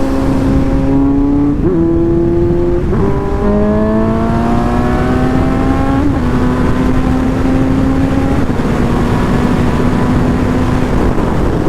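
Suzuki GSX-S750's inline-four engine heard from the saddle under way, its pitch climbing slowly and stepping down at an upshift about three seconds in, then easing lower later on. A steady rush of wind runs beneath it.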